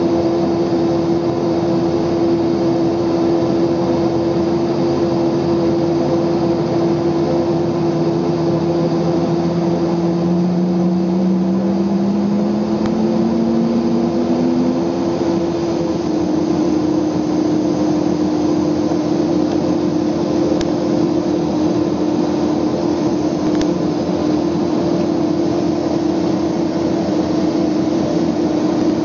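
Cockpit noise of an MU-2 Marquise with one Garrett turboprop engine running at a steady whine while the left engine starts: the starting engine's tone rises slowly from about six seconds in and settles into the running engine's note about fifteen seconds in.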